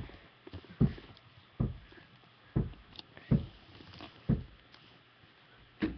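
A series of about six dull thumps, roughly one a second, with faint room noise between them.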